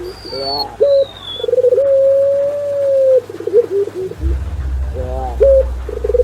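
Doves cooing: a quick rolling run of short coos leads into one long drawn-out coo of nearly two seconds, and another rolling run starts near five seconds. High, thin falling whistles sound twice in the first second and a half, and a low rumble sets in about four seconds in.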